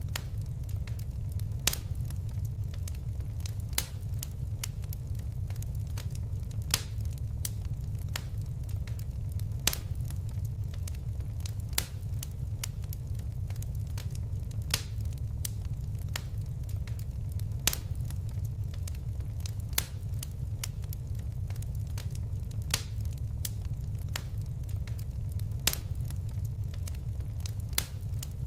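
Fire crackling in a fireplace: irregular sharp pops and snaps, a few louder ones, over a steady low rumble of the flames.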